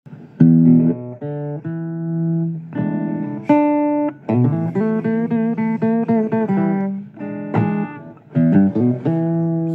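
Guitar playing a blues intro: plucked single notes and chords in short phrases, starting about half a second in.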